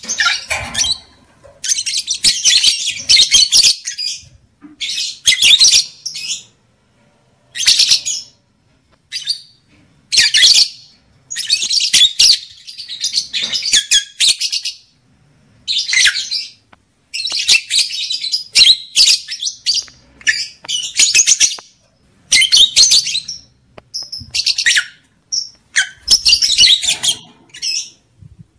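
Lovebirds chattering and chirping in high-pitched, rapid bouts of a second or two with short pauses between them. These are breeding-season calls of the kind played to stimulate lovebirds to mate.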